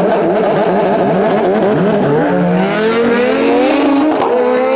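Drag-racing vehicle's engine revving at the line, then pulling away hard from about two seconds in with a steadily rising pitch, broken briefly near the end by an upshift.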